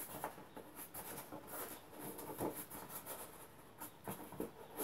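Faint handling noise from the packaging tube's end lid: a few light taps and rustles as items are worked out of its tight fit.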